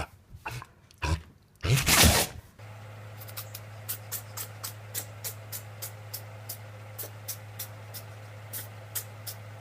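A pet sneezes once, a short loud burst of breath about two seconds in. Then a steady low hum sets in, with light clicks about three times a second.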